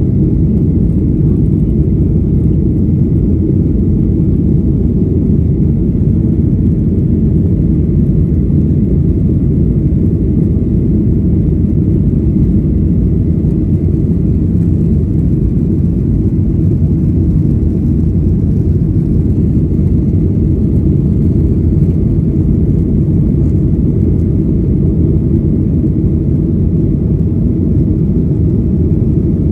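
Steady, deep cabin noise of a Boeing 737-800 in its climb after takeoff: engine and airflow noise heard from inside the passenger cabin, unchanging throughout.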